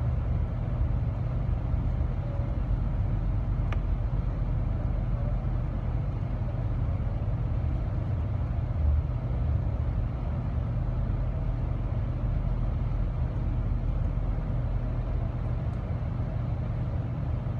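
Steady low rumble of a moving passenger train, heard from inside its dome car, while a freight train passes on the adjacent track. A faint click about four seconds in.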